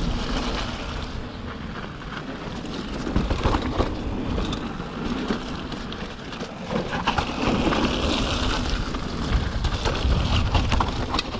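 Mountain bike rolling fast downhill on a wet, muddy dirt trail: tyre noise over mud and dirt, wind noise on the microphone, and frequent knocks and rattles from the bike over bumps.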